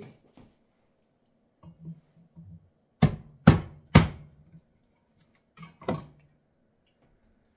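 Three sharp knocks about half a second apart, then a fourth about two seconds later: a garlic clove being smashed on a kitchen cutting surface to crack its papery skin.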